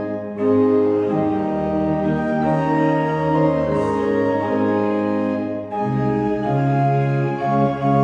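Pipe organ playing slow, sustained chords. The sound breaks briefly between phrases just after the start and again near six seconds in, where a lower bass line comes in.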